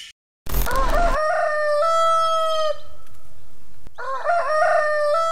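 Rooster crowing twice, each crow a long call of about two seconds that wavers at the start and then holds steady, the second beginning about four seconds in. A short, loud, noisy burst comes just before the first crow.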